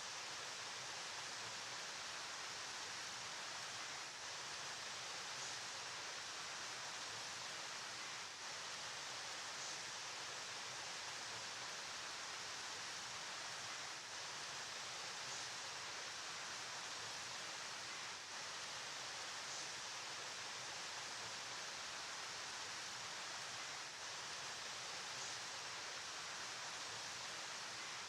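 Steady rushing of flowing river water: an even hiss, heaviest in the treble, unchanging apart from brief slight dips every few seconds.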